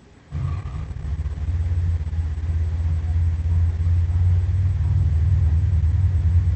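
Gorosaurus monster sound effect: a loud, deep, steady rumble that starts about half a second in and cuts off suddenly near the end.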